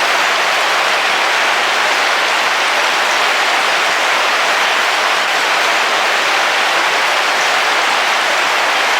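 Heavy rain falling on the roof of a camping car, heard from inside, as a dense, steady hiss with no thunder.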